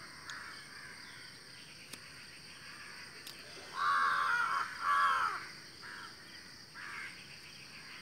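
A crow cawing twice in quick succession about four seconds in, two harsh calls, over a faint steady high-pitched background drone.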